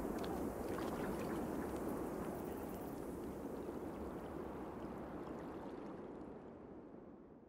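A steady rushing noise like flowing water, slowly fading out.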